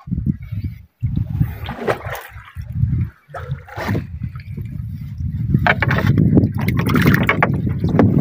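Water sloshing and splashing against the hull of a small outrigger boat, over a low rumbling noise that becomes steadier in the second half.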